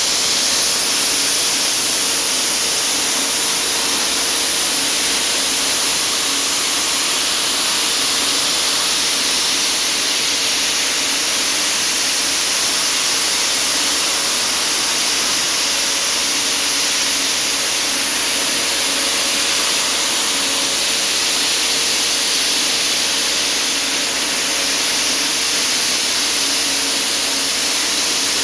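Soda blaster running: a steady, loud hiss of compressed air driving baking-soda media through the nozzle to strip soot and charred material from wood, with a faint steady hum underneath.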